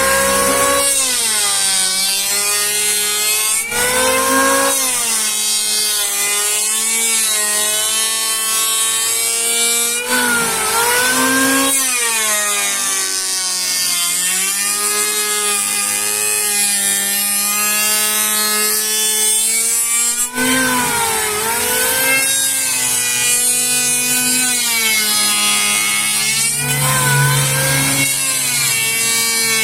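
Sawmill saw cutting Bornean ironwood: a steady whine over a high hiss, its pitch sagging and recovering several times as the blade takes load in the dense wood.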